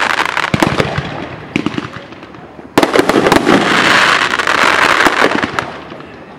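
Aerial fireworks bursting: a run of sharp bangs with a dense crackle after them. About three seconds in a new volley of bangs sets off a longer crackle that slowly fades.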